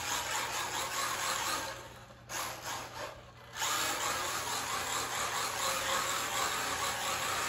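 A 1/16-scale RC drift car's small 380-size electric motor and drivetrain whirring at full throttle. The whir drops away for about a second and a half around two seconds in as the throttle is eased, then comes back.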